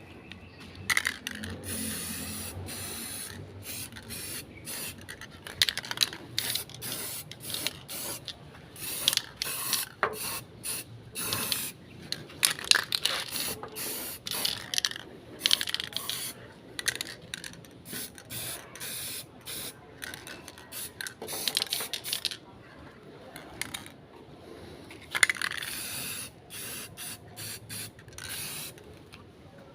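Irregular short, hissing scrubbing strokes, some held for a second or two, from cleaning a metal stock pot burner part.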